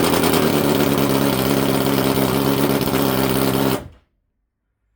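BMW S1000XR inline-four idling high just after starting, through decat Black Widow headers with only the end-can dB killer fitted and the inline honeycomb dB killer removed; steady pitch. Cuts off suddenly about four seconds in.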